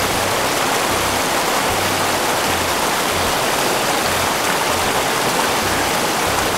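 River water rushing, a steady, loud hiss, with some uneven low rumble underneath.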